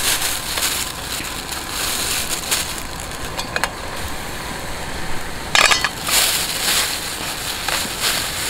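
Clear plastic bag crinkling and rustling as it is handled, with sharper crackles a little past three seconds and a loud crackle of the bag about five and a half seconds in, over a steady hiss.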